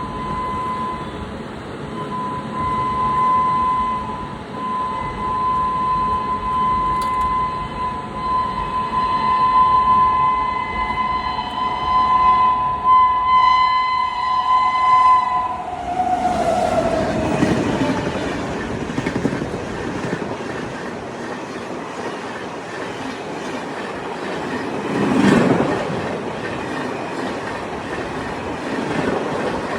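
Indian Railways WAP-7 electric locomotive's horn, held on with short breaks for about fifteen seconds, then dropping in pitch about sixteen seconds in as the locomotive passes at speed. The rumble and wheel clatter of the passenger coaches rushing by follow.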